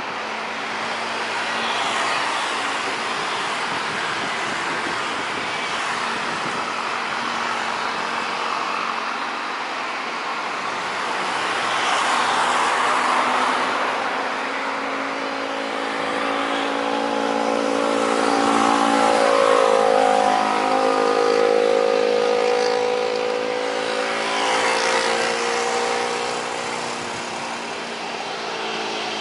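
Boeing 737-800's CFM56-7B turbofan engines at taxi power: a steady jet rush with an engine whine that grows stronger in the second half and wavers in pitch as the aircraft rolls past.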